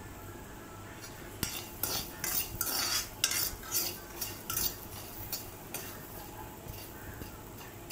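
Metal spatula scraping and stirring soaked peanuts that are being roasted in a steel wok until they colour. A run of quick scrapes with the nuts rattling, about two a second, starts about two seconds in and stops near six seconds.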